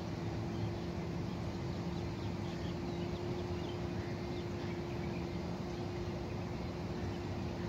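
Steady outdoor background noise with a constant low hum, with faint, scattered bird chirps.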